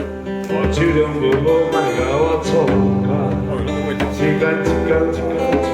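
Live band music with strummed guitar and a steady bass and beat: an instrumental passage without singing.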